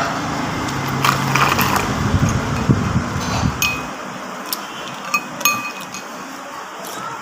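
Metal spoon and fork clinking against a ceramic soup bowl, several short ringing clinks mostly in the middle, over a low hum that stops about four seconds in.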